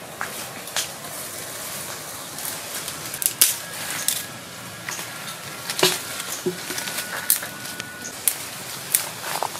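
Leaves rustling and twigs snapping as someone pushes through brush and handles plants, with irregular sharp crackles over a steady background hiss.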